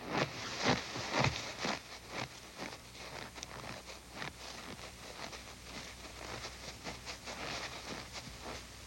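Footsteps in snow: a person walking steadily, a run of short crunching steps, louder over the first couple of seconds and then fainter.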